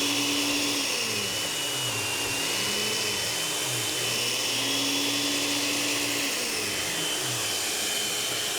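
Several small countertop blenders running on the blend setting, chopping frozen fruit. The motors give a steady whir whose pitch slowly sags and recovers as the frozen chunks load them.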